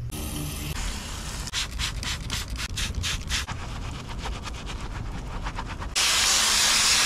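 A soft brush scrubbing foaming cleaner into a pleated motorcycle air filter in quick back-and-forth strokes. About six seconds in, a garden hose spray nozzle opens with a sudden loud, steady hiss of water rinsing the filter.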